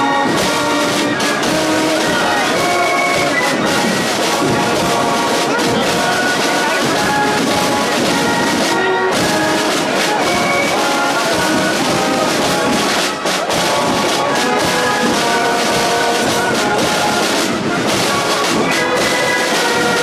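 A brass band playing a tune without a break.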